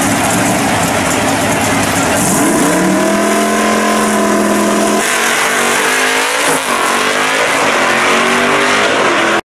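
Two first-generation Chevrolet Camaro drag cars running hard at the start line. About two seconds in they launch, and the engine pitch climbs sharply and holds. About five seconds in it breaks and climbs again as the cars pull away down the strip.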